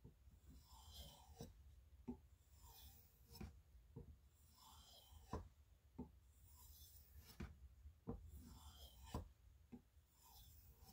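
M390 knife edge being stroked across a leather strop loaded with 16 micron CBN compound on an aluminium back: faint soft swishes about every two seconds, each with a light click, as the edge is finished after sharpening.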